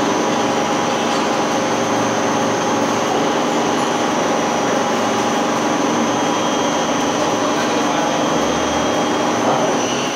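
Cold roll forming machine running, its rollers forming steel strip into a deep tray channel: a steady mechanical hum made of several tones, with a thin high whine over it.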